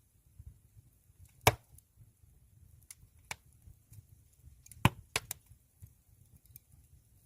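Wood fire crackling in a traditional Korean agungi firebox: two sharp loud pops, one about a second and a half in and another about five seconds in, with a few smaller snaps over a faint low rumble.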